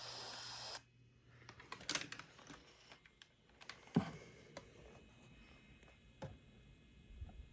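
A steady hiss with a low hum that cuts off suddenly just under a second in, followed by scattered sharp clicks and knocks, two of them louder than the rest.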